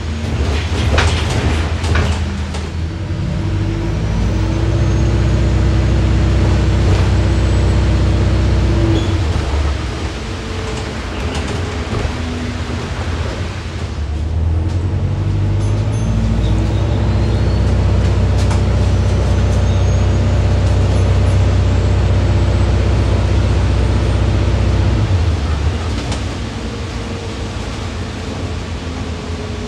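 Cabin sound of a London double-decker bus under hard acceleration: a low engine and drivetrain drone swells and is held for several seconds, eases briefly, then builds and holds again before dropping back near the end. A few knocks and rattles of the bus body near the start.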